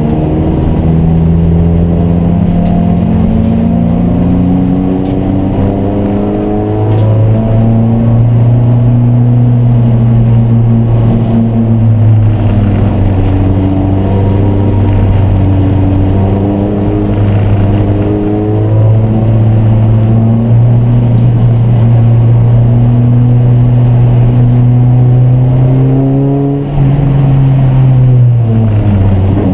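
Race car engine running hard, its pitch climbing slowly through long pulls, with a drop in pitch about seven seconds in and another sharp dip and recovery near the end, as at a gear change or lift-off for a corner.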